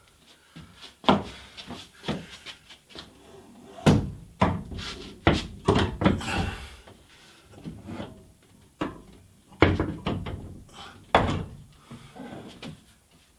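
Irregular knocks and clunks of a heavy glass sliding-door panel being handled and hung by its barn-door glides onto the overhead rail. The loudest knocks come about four, ten and eleven seconds in.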